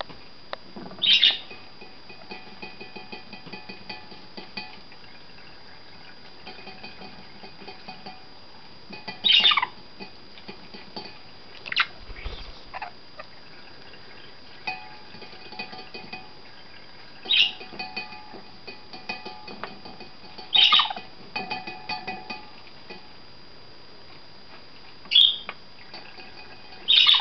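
Budgerigar giving about six loud, harsh squawks that fall in pitch, with soft chattering between them. The squawks are its protest at a hairspray tin being tapped.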